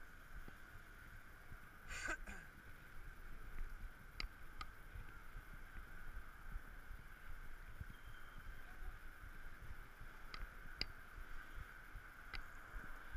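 Muffled low rumble of a bicycle rolling over city pavement, heard through an action camera's housing, with a steady faint hiss-like tone over it. A short ringing tone sounds about two seconds in, and a few sharp clicks come later.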